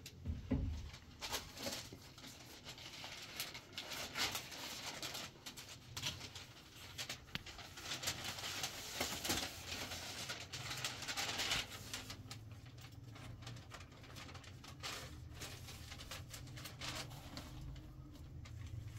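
Scattered clicks, knocks and rustling, most frequent in the middle, over a faint low hum.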